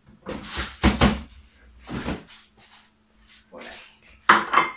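Several knocks and bumps as a kitchen door is opened and shut and items are handled, with a few low spoken words. The loudest knock comes near the end.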